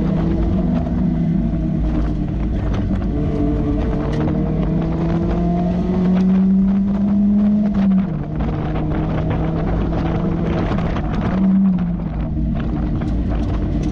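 Mazda Miata's four-cylinder engine pulling around a track, heard from the open-top cabin with wind noise. The engine note climbs steadily for about eight seconds, drops suddenly, rises briefly again a few seconds later, then holds steady.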